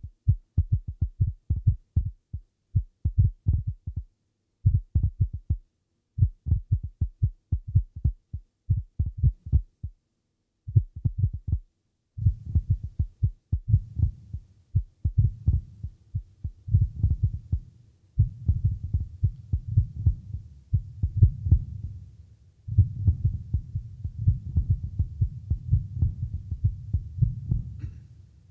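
Low throbbing pulses, about four a second, heard as part of a contemporary vocal-ensemble piece. For the first twelve seconds they come in short bursts separated by gaps. From then on they run continuously over a low hum.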